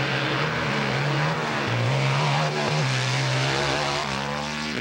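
Hillclimb motorcycle engine revving hard as the bike climbs a steep dirt hill. The pitch surges up and down with the throttle and drops off near the end as the bike reaches the top.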